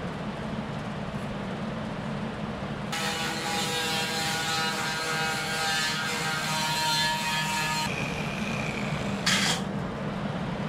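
A handheld corded power tool runs for about five seconds, starting about three seconds in, working away old foam from a boat's core panel; its pitch wavers slightly as it bites. A short burst of noise follows about a second and a half after it stops, over a steady low hum.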